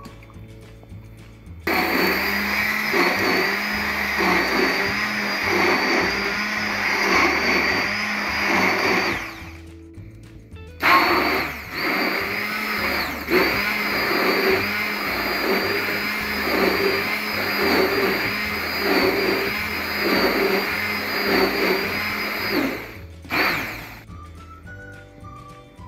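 Electric immersion (stick) blender running in a tall cup, grinding apple pieces into orange juice: a steady motor hum with a churning sound. It runs in two long stretches, starting about two seconds in, with a short pause in between, then gives one brief final pulse.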